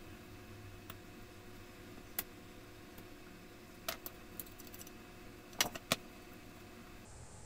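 Handling and opening the small case of an AKS long-range locator's battery and control box: a handful of sharp clicks and light rattles, the loudest a close group about two-thirds of the way in as the lid comes off.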